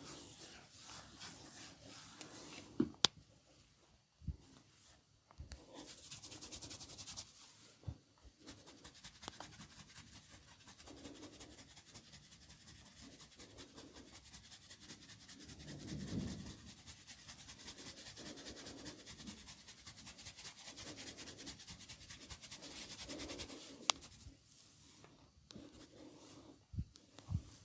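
Hands massaging skin in fast, even rubbing strokes that make a dry, scratchy rub, with sharp clicks about three seconds in and again near the end.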